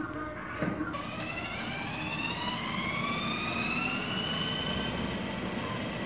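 Electric drive motor and gearbox of a ride-on toy Jeep Wrangler whining as it gets going, the pitch rising slowly for several seconds as it picks up speed.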